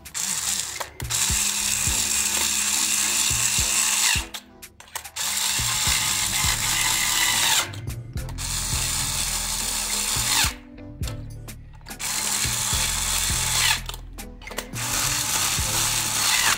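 Handheld electric screwdriver turning screws in a plastic toy housing, running in five spells of two to four seconds with short pauses between them.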